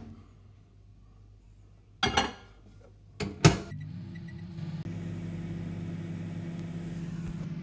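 Microwave oven being started: a knock about two seconds in and sharp clicks around three and a half seconds, then the oven runs with a steady electrical hum, its fan hiss joining a second later.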